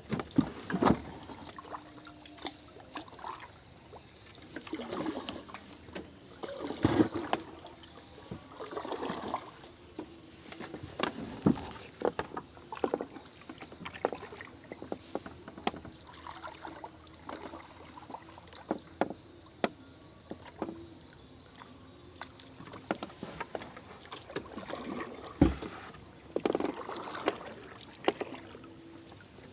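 A small boat being paddled: irregular splashes of paddle strokes in the water, with sharp knocks of the paddle against the hull.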